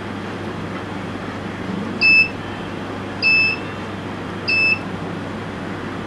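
WitBlox buzzer module of a home-made burglar alarm sounding three short high beeps about a second and a quarter apart, set off as a hand comes near the infrared distance sensor at the model house's doorway.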